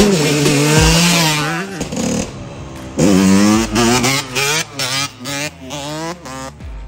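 Dirt bike engine running steadily, then revved in a series of short throttle blips from about three seconds in, each rising and falling in pitch.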